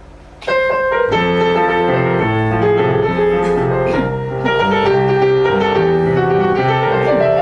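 Grand piano playing the introduction to a chanson, starting about half a second in, with held low notes under a moving melody.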